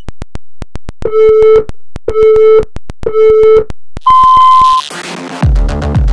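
Race-start countdown sound effect: steady fast ticking under three lower beeps about a second apart, then a longer, higher beep on 'go'. A short whoosh follows, and electronic dance music with a steady bass beat comes in about five seconds in.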